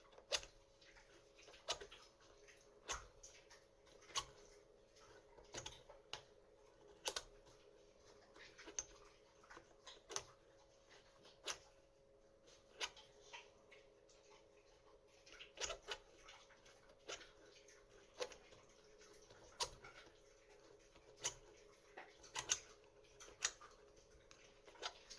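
Lock pick and decoder tool being worked inside an Ultion WXM euro cylinder lock: sharp, small metallic clicks, one every second or so, some in quick pairs, as the pick is worked against the cylinder's pins.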